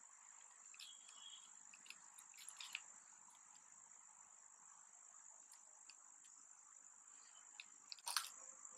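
Quiet handling of powder and plastic: faint rustles and small clicks as powder is squeezed from a plastic bag into a plastic scoop, then a brief louder clatter about eight seconds in as the scoop is tipped into a plastic cup. A steady high-pitched tone runs underneath.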